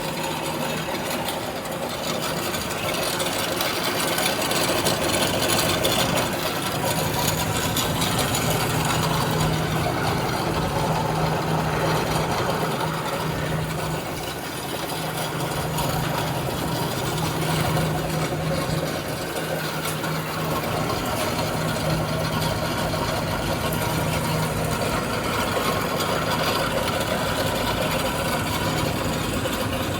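DAKE 9 x 12 inch manual horizontal bandsaw running, its motor and step-pulley belt drive turning the blade with a steady mechanical sound. A low hum comes and goes from about six seconds in.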